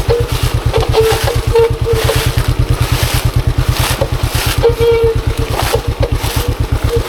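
Monarch Axis 125 trail motorcycle's 125 cc single-cylinder engine running at steady low revs with an even, rapid low pulsing, with brief rushes of noise now and then.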